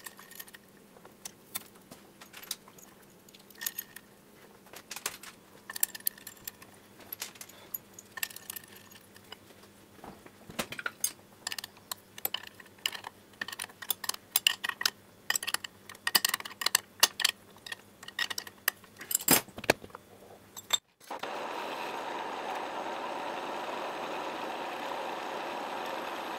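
Many short metallic clicks and clinks of bolts and a spanner on a steel brake disc and lathe faceplate as the disc is bolted on. About 21 seconds in, a metal lathe runs steadily, turning the disc's mounting face.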